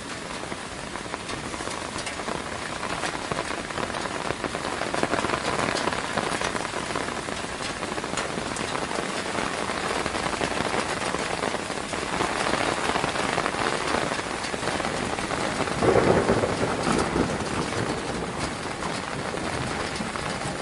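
Steady rain falling on a surface, with individual drops heard as fine ticks. A louder swell lasts about a second, roughly three quarters of the way through.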